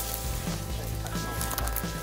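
Background music with sustained chords over a low bass.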